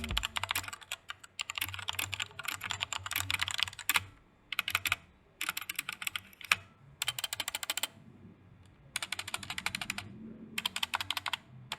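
Typing on a Magegee Star-61 60% mechanical keyboard, rapid key clicks in bursts of a second or so with short pauses between. Its stock stabilizers are kinda rattly to the owner.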